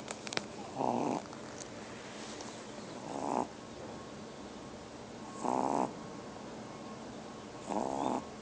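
A very young pet snoring in its sleep: four big, buzzing snores about two and a half seconds apart, each about half a second long. A few faint clicks come right at the start.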